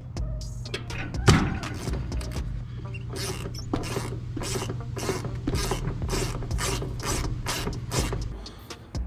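Ratcheting hex-key wrench clicking in short strokes as it backs out a heat pump's refrigerant service valve stem, opening the valve to let the charge into the line set. One louder knock comes about a second in.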